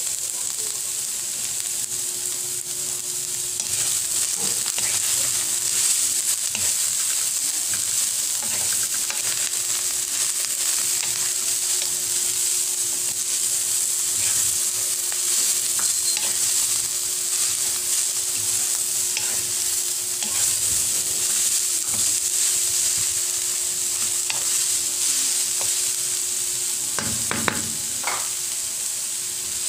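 Sliced cabbage, carrot and jicama sizzling in a hot pan as they are stir-fried, with a utensil stirring through them; a steady hiss.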